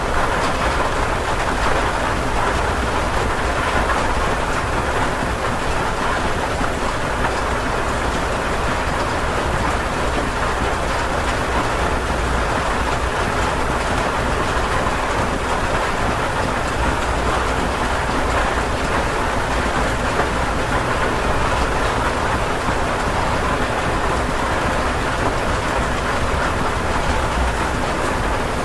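Steady rain heard from inside a house, a continuous even hiss of drops with a low rumble underneath.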